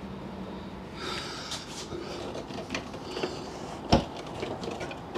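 Light clicks and scraping of bolts and a metal bracket being worked by hand up under a Jeep Wrangler TJ's front end, with one sharp knock about four seconds in, the loudest sound. Breathing between the clicks.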